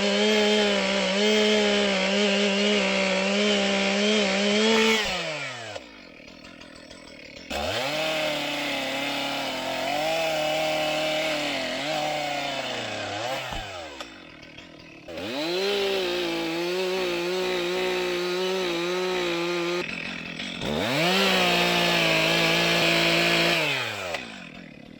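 Two-stroke chainsaw held at full throttle in four runs of a few seconds each, cutting wood. Between the runs the throttle is let off and the engine pitch drops away toward idle.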